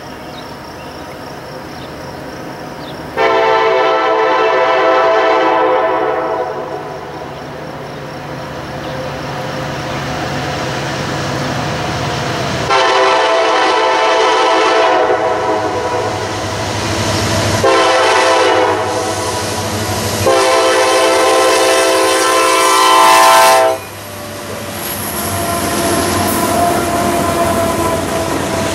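Freight locomotive's air horn sounding the grade-crossing signal, long, long, short, long, getting louder as the train nears. After the last blast the locomotive and freight cars roll past the crossing, wheels clicking over the rail joints.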